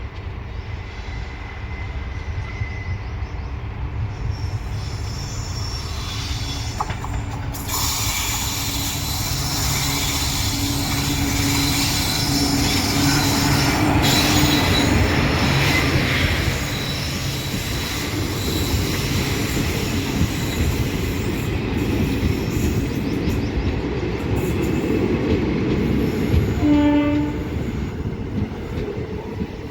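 Indian Railways train rolling into a station: steady rumble of the locomotive and wagons on the track that grows louder to a peak about halfway, with wheel and brake squeal as it brakes. A short horn blast sounds near the end.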